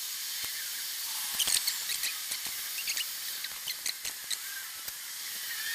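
Small plastic and metal RC car parts being handled and fitted, giving scattered light clicks and ticks with a brief squeak, over a steady hiss.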